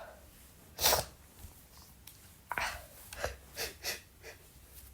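A man's gasping, catching breaths between sneezes. There is one sharp breathy burst about a second in, then a string of shorter gasps, the build-up to another sneeze.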